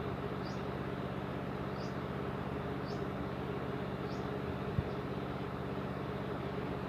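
Steady low machine hum over a wash of noise. Above it a short high chirp repeats four times, about once a second, and a single sharp tap sounds about two-thirds of the way through.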